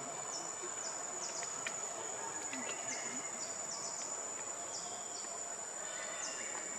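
Steady high-pitched insect drone from cicadas or crickets, with short chirps that drop in pitch repeating about twice a second.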